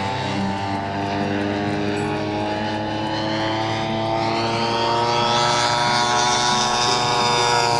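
ZDZ 80cc two-stroke petrol engine of a scale RC Piper PA-18 Super Cub model running in flight, its pitch rising through the second half.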